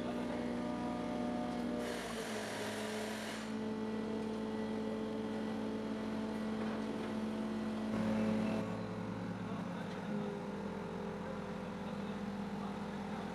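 Heavy machine's engine running steadily, its hum jumping to a new pitch several times, with a short hiss about two seconds in.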